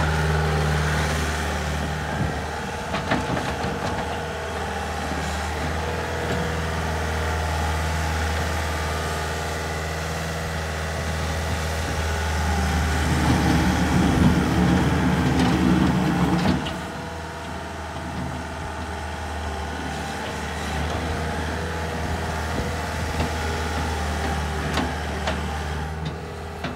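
Diesel engine of a 2010 Bobcat S300 skid steer running steadily. About halfway through it grows louder for a few seconds, then drops back suddenly to a steady run.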